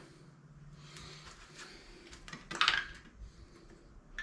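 Light metallic clinks and rattles of tools and engine parts being handled while the lawn mower engine is taken apart, with one louder clatter about two and a half seconds in.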